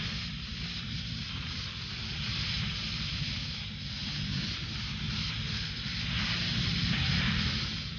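Heavily distorted black metal music from a lo-fi cassette recording: a dense wall of guitar noise over fast, rapidly struck low drums, with no vocals heard.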